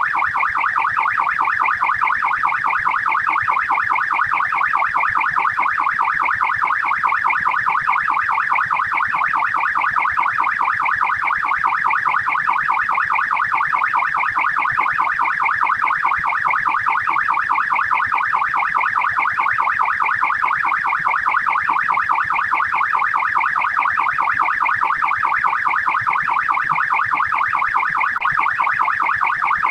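Australian police car siren on its fast yelp setting: a rapid, even warble sweeping up and down many times a second without a break.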